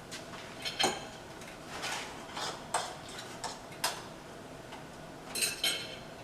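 Kitchen utensils clinking and knocking against pots and pans on the stove, a string of irregular separate clinks.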